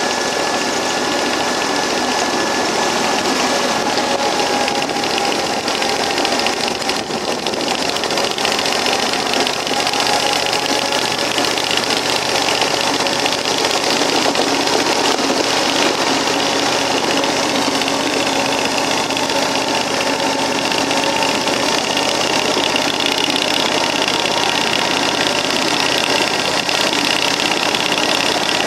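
The 16-horsepower Briggs & Stratton industrial V-twin petrol engine that powers a 1.6-inch-scale EMD F7 riding locomotive runs steadily while pulling the train along the track.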